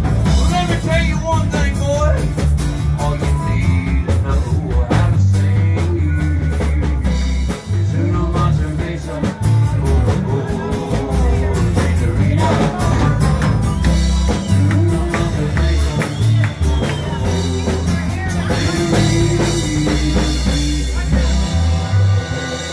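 A live band playing a rock song: acoustic guitar with a man and a woman singing, over a strong bass line. A harmonica joins in near the end.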